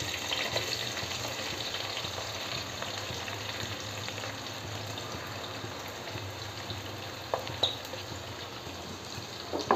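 Sliced onions sizzling as they fry in hot sunflower oil in a wide metal pan, with a few light clicks near the end.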